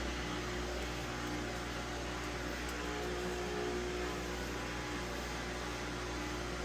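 Samsung washing machine running steadily as it drains, a constant low mechanical hum from the drain pump, now working again after a dollar bill stuck in the drain was cleared.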